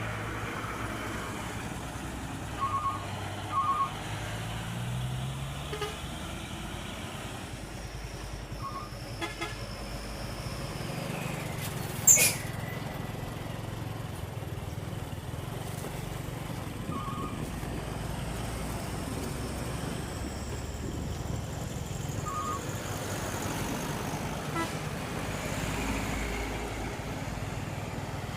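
Heavy vehicle engines running steadily during a truck recovery, with a few short horn toots in pairs. There is one loud sharp metallic clank about twelve seconds in.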